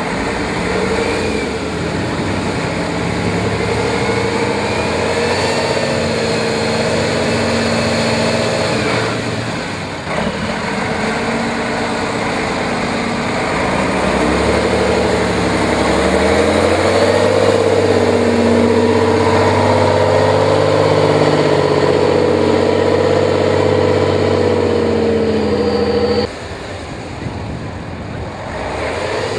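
Praga V3S trial truck's diesel engine working hard under load, its revs rising and falling as the truck crawls over rocks and up a steep bank. Near the end the engine sound drops suddenly to a quieter level.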